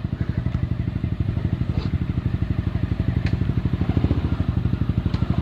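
Motorcycle engine running steadily without revving, with an even, fast pulsing beat.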